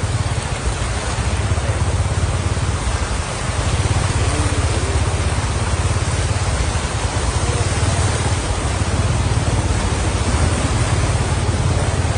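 Floodwater rushing across a road: a steady, even rushing noise with a deep rumble underneath.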